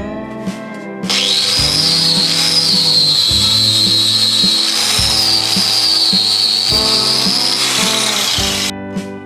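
A power tool working metal runs for about seven and a half seconds. It starts abruptly about a second in and cuts off sharply near the end, with a high, slightly wavering whine over a loud hiss. Guitar background music plays underneath.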